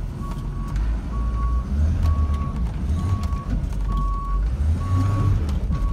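Reverse alarm of a 2005 GMC C5500 dump truck beeping, a single steady tone about once a second, over the low rumble of the truck's engine as it backs up.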